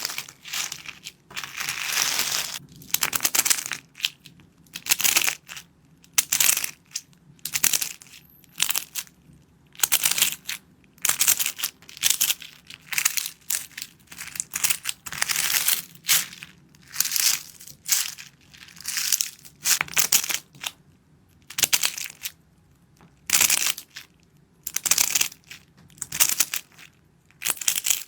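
Crunchy material being crushed again and again in short crackling bursts, about one or two a second, with brief pauses between them.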